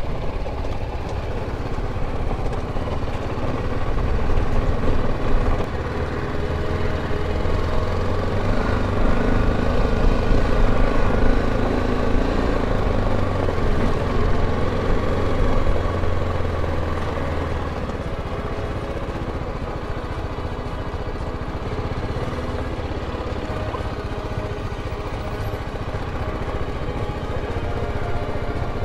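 BMW G310GS's single-cylinder engine running as the motorcycle rolls along a rough gravel mountain track. The engine note swells a few times early on and then settles steadier and a little quieter for the last third.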